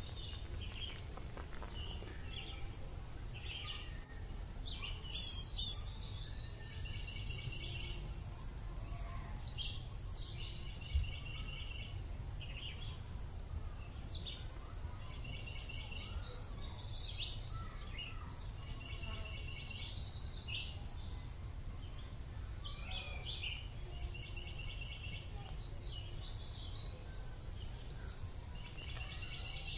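Birds chirping and calling again and again, in short high chirps and quick pulsed trills, over a steady low rumble; one louder call comes about five seconds in, and a single short knock a few seconds later.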